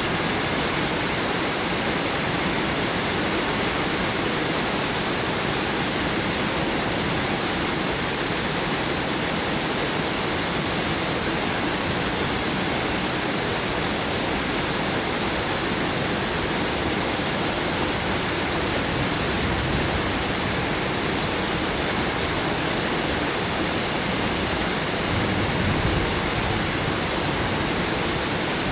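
Heavy downpour in a rainstorm: a dense, steady hiss of falling rain that does not let up.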